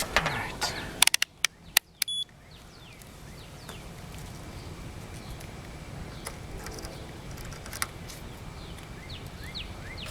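A few sharp clicks and a short electronic beep, typical of a multimeter being switched and set up for a capacitor test, then steady outdoor background with birds chirping briefly now and then.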